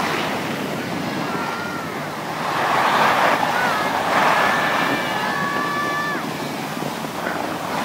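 Skis sliding and scraping over packed snow, with wind rushing on the microphone, the rush swelling twice near the middle.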